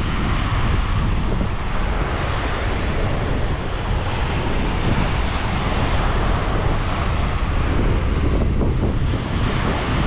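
Sea surf washing onto the beach under strong wind buffeting the microphone: a steady, loud rush of noise, heaviest in the low end, without a break.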